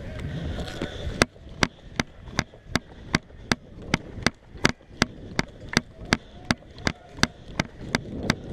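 A steady series of sharp clicks, about three a second, starting about a second in.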